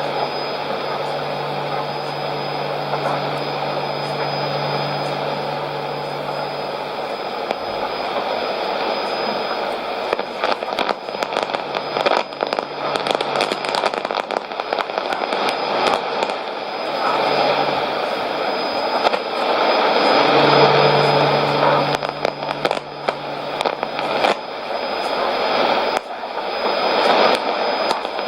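Strange test-transmission sound on 5990 kHz shortwave, heard through a Sony ICF-2001D receiver: a steady hissing, noise-like signal over a low hum. From about ten seconds in, it turns crackly with many sharp clicks.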